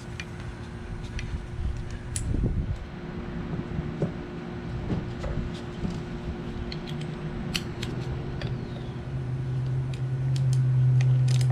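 Scattered light clicks and taps of small compressor parts being handled, over a steady low mechanical hum that grows louder near the end.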